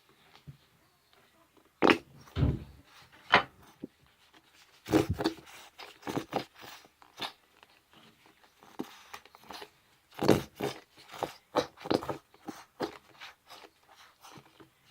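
Irregular clicks, crackles and crinkles of a plastic container being handled and its cap worked at to get it open, in bursts with pauses between.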